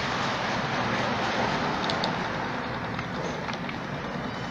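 Steady, even rushing background noise with no clear rhythm, with a couple of faint light ticks about two seconds in.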